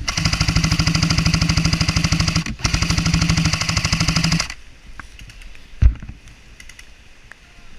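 Airsoft gun firing on full auto close to the microphone: two long bursts of rapid, evenly spaced shots over a steady motor hum, with a brief break about two and a half seconds in. A single heavy thump follows near the end.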